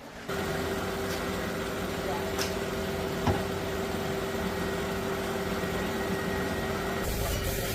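A machine or engine comes in abruptly and runs with a steady hum, a single click sounding about three seconds in and a deeper rumble joining near the end.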